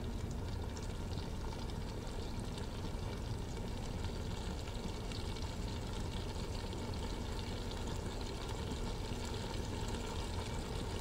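Faint, steady kitchen background noise while thick onion paste is poured slowly into a steel pot of tomato sauce. There is no distinct splash or plop.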